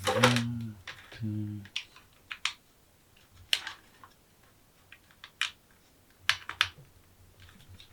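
Scattered light clicks and taps of small plastic parts and a USB cable being handled, irregular and spaced out over several seconds, with two short low hums near the start.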